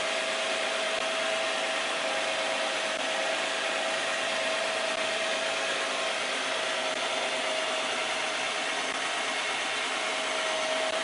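A steady, even hiss-like noise, like a fan or blower, with a constant mid-pitched hum running through it.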